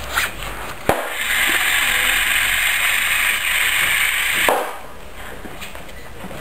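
A sharp click about a second in, then the small motors of a Cebekit C-9803 sound-activated robot frog run with a steady whir for about three and a half seconds and stop abruptly with another click.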